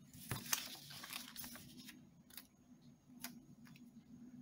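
Paper rustling as hands slide over and turn a planner page, busiest in the first second and a half, followed by a couple of light ticks.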